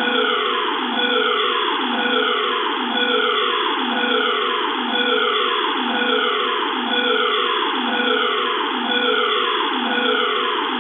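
Electronic siren alarm sound effect: a tone that falls in pitch, then jumps back up, repeating evenly about once a second.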